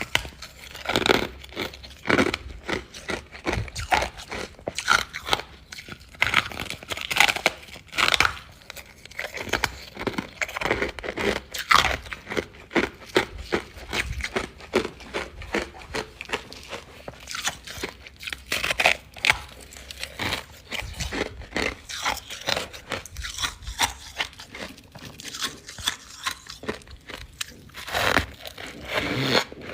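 Close-miked biting and chewing of refrozen freezer frost: brittle ice crunching in quick, irregular bursts, several a second.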